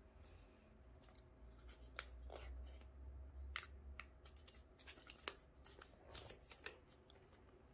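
Faint crinkles and crisp ticks of a sheet of paper being folded and tucked by hand, a few separate ticks spread through a near-quiet stretch.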